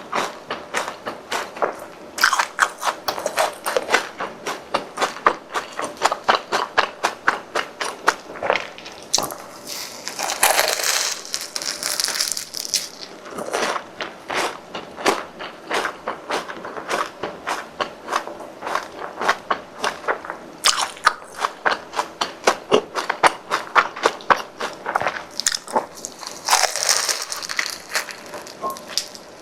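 Close-up biting and chewing of crispy deep-fried croquette bread: a dense run of crunches and crackles, each bite giving a quick burst of small clicks. Twice, for a couple of seconds, a brighter crackle rises over the chewing.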